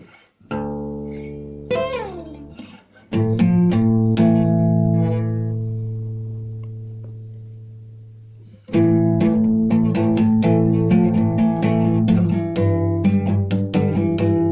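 Guitar playing: a low note about half a second in, a note sliding down near two seconds, then a chord struck at about three seconds and left to ring out and fade. Just before nine seconds, steady rhythmic picking of chords begins.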